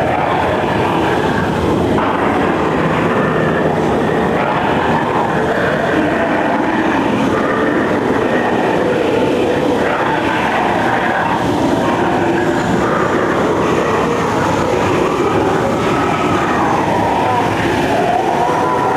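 Dinosaur-scene soundtrack of a dark ride heard through a camcorder microphone: a steady, dense rumble with wavering tones over it.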